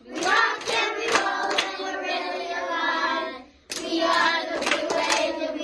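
Music over the closing credits: voices singing long held notes over hand claps, breaking off briefly about three and a half seconds in before picking up again.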